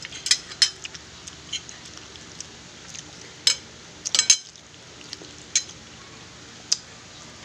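Metal cutlery clinking and scraping on a glass plate as food is scooped up: scattered short, sharp clicks, with a quick cluster of them a little past the middle.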